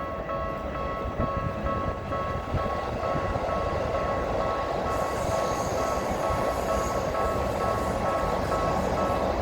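Japanese level-crossing warning bell ringing in a steady repeating rhythm while a Keikyu train rumbles over the crossing, the train noise growing from about three seconds in.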